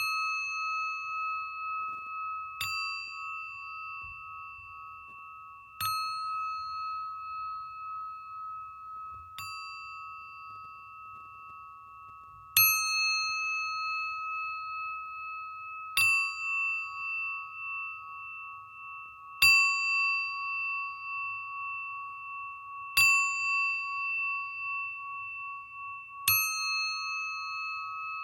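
Singing bowl struck about every three seconds, nine times. Each strike rings on in a sustained, slowly wavering tone that carries over into the next strike.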